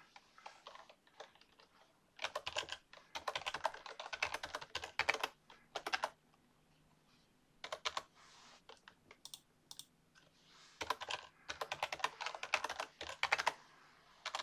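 Typing on a computer keyboard: two runs of quick keystrokes a few seconds apart, with a few single key presses between them.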